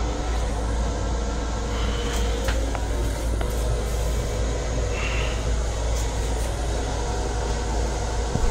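Steady interior noise of an LIRR M7 electric railcar heard from inside its small restroom: a constant low rumble and hiss with a few faint clicks and rattles, and two brief faint squeaks.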